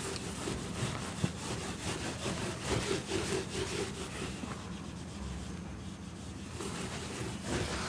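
Whiteboard duster wiping marker writing off a whiteboard in repeated rubbing strokes.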